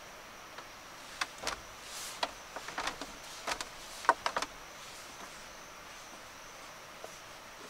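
A quick irregular series of sharp light knocks and clicks lasting about three seconds, over a faint steady high-pitched tone.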